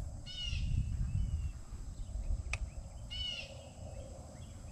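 A bird gives two short calls about three seconds apart, over a low rumble, with a single sharp click between the calls.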